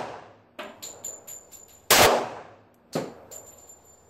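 Colt 1911 .45 ACP pistol being fired: one loud shot about two seconds in and a weaker crack about a second later, with the previous shot still dying away at the start. Light sharp clicks and clinks come between the shots.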